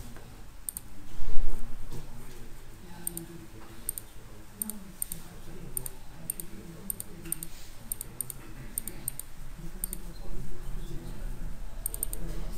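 Sharp computer clicks, singly, in pairs and in quick runs, as presentation slides are clicked through. A loud thump about a second in.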